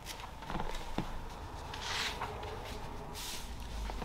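Paper pages being turned: soft rustling with two short swishes, one about halfway through and one a second later, and a couple of light taps in the first second.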